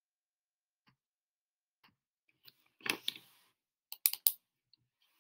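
Computer mouse clicking while text is highlighted: a few faint ticks, a short rustling noise about three seconds in, then a quick cluster of three sharp clicks about four seconds in.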